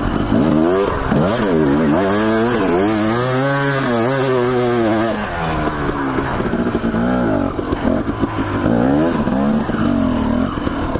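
Two-stroke Husqvarna TE250 enduro dirt bike engine revving up and down as it is ridden over rough, steep ground, its pitch climbing and falling again and again.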